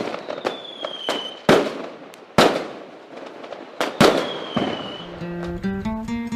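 Fireworks going off: a series of sharp bangs, about seven in five seconds, with two falling whistles among them. About five seconds in, strummed acoustic guitar music begins.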